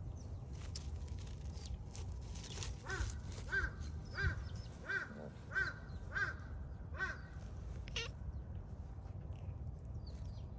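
Calico cat meowing in a quick series of about seven short mews, each rising and falling, roughly two-thirds of a second apart, as it rolls on its back and bats with its paws. Light scuffing in dry grass and leaves is heard around the calls.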